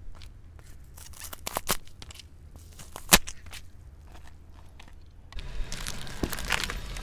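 Car tyre rolling over green pears on asphalt and crushing them: a few crunching cracks as the fruit splits, the loudest about three seconds in, over a low steady rumble. Near the end a louder steady rolling noise with more crackling sets in.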